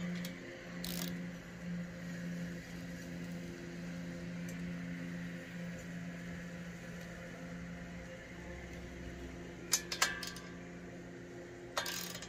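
A faint steady low hum, then a few sharp metallic clicks about ten seconds in and again near the end, from a hand tool working the bolts on the log splitter's steel frame as they are loosened.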